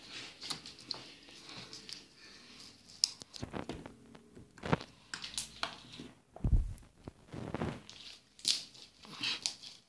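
Slime being squeezed and stretched by hand, giving irregular clicks and squishes with a few heavier low thumps.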